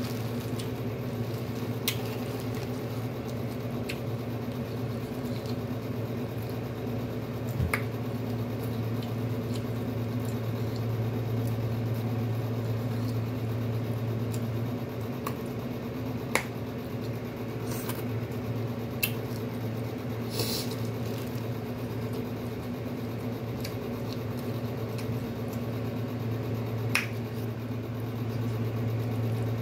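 Scattered sharp clicks and cracks, about eight spread across the stretch, as seafood-boil food is picked apart and its shells cracked by hand over a plastic bag. A steady low hum runs underneath.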